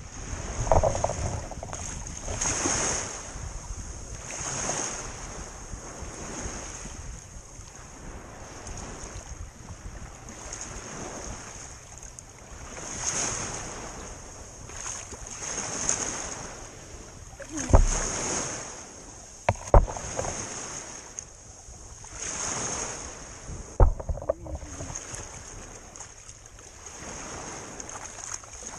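Small waves washing and lapping onto a shallow lakeshore and around a wader's legs, swelling about every two seconds. A few sharp knocks sound in the second half.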